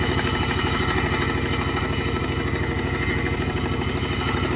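1979 Pontiac Trans Am's Oldsmobile 403 V8 idling roughly with a steady, uneven beat. The owner takes the clatter for lifter noise and a rod knocking, and the engine is dropping a cylinder.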